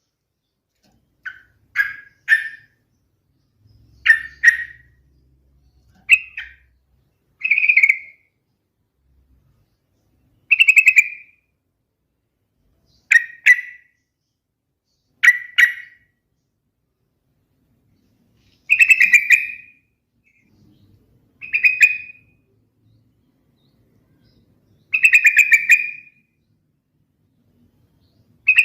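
Yellow-vented bulbul (trucukan) singing: about a dozen short phrases, each under a second, repeated every two to three seconds with silence between.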